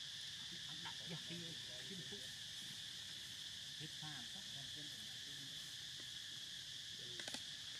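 Insect chorus droning steadily, one continuous high-pitched note, with a few faint clicks near the end.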